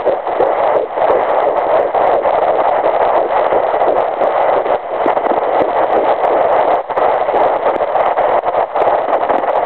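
Handheld fetal Doppler's loudspeaker playing a steady whooshing hiss. It carries the fast heartbeat of a fetus at 9 weeks and 2 days, about 168 beats per minute.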